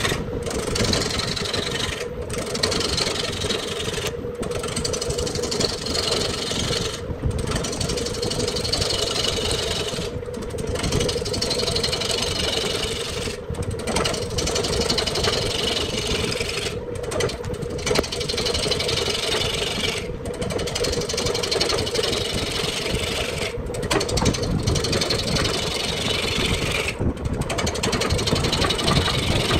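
Wood lathe running with a steady motor hum while a gouge cuts a large spinning wooden blank, a continuous scraping hiss of shavings coming off. The cutting noise breaks off briefly every two to three seconds and starts again.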